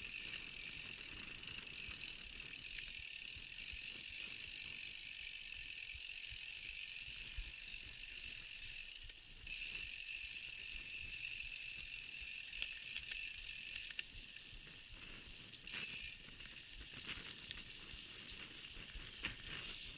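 Mountain bike's rear freehub ticking as a fast steady buzz while the bike coasts, over tyre rumble and knocks from rough dirt ground. The buzz breaks off briefly about nine seconds in and again near sixteen seconds.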